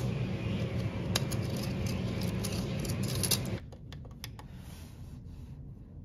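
Steady hum of a busy room with a few sharp plastic clicks as a lidded plastic food container is handled, then, after a sudden drop in level, a quiet room with a few soft clicks of wall lighting-keypad buttons being pressed.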